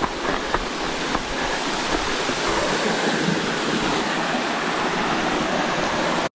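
Waterfall: a steady, even rush of water falling onto rocks and into the stream below.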